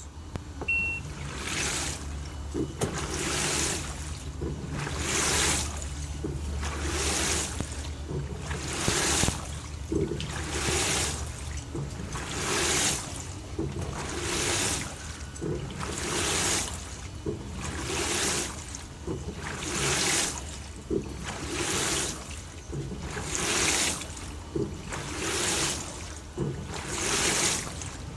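LG TurboDrum top-loading washing machine agitating a full load of bedding in water, a swish of water about every two seconds over a low motor hum.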